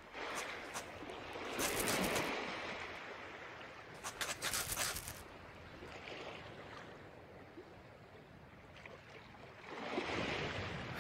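Surf washing gently on a beach, swelling and ebbing, with two short bursts of rapid clicking: the first about a second and a half in, the second about four seconds in.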